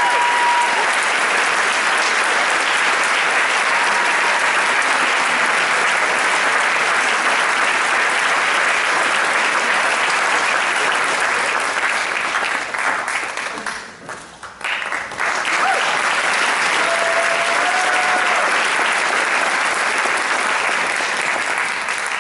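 Audience applauding, loud and sustained. It dips briefly about two-thirds of the way through, then picks up again.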